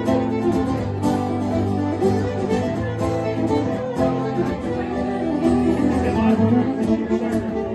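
Fiddle and guitar playing a tune together, the fiddle carrying the melody over the guitar.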